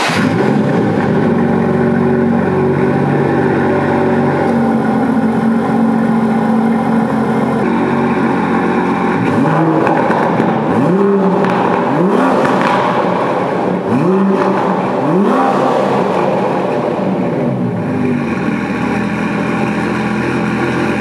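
Aston Martin DB11 AMR's 5.2-litre twin-turbo V12 idling through its exhausts, then blipped through a run of short, sharp revs in the middle and settling back to idle near the end.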